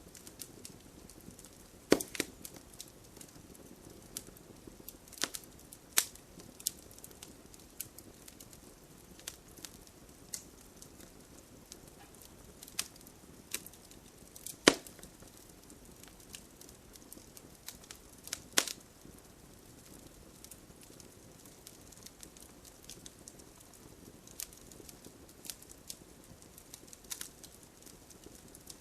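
Wood fire crackling: irregular sharp pops and snaps over a low steady hiss, with a few louder pops about two, six, fifteen and nineteen seconds in.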